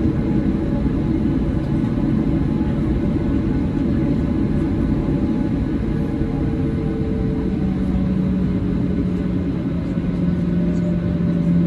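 Cabin noise of a Boeing 737-800 taxiing: a steady low rumble from its CFM56 jet engines at taxi power. A steady low hum comes in about eight seconds in.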